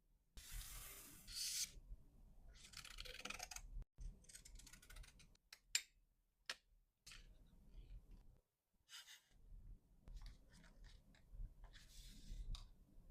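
Hands handling packing materials: short bursts of rustling and crinkling wrapping, with a run of sharp clicks in the middle, the loudest a little before halfway.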